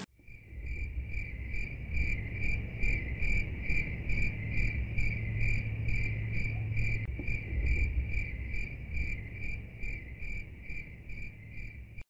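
Insect chirping steadily, about three short high chirps a second, over a low rumble.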